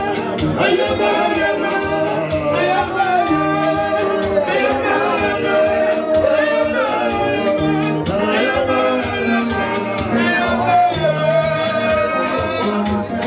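Live band playing Cameroonian Grassfields bottle-dance music: a man sings through a microphone over electric guitar and a steady beat.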